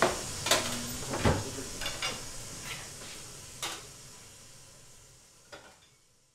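A utensil clinking and scraping on a metal baking tray, and dishes knocking as they are cleared from a wooden table: about seven sharp taps over a faint background, fading out toward the end.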